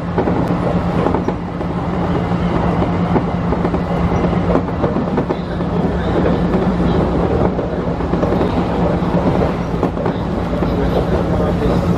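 Tobu electric commuter train running, heard from inside the front cab: a steady rumble of wheels on rail with a steady low hum, and occasional clicks as the wheels cross rail joints and points.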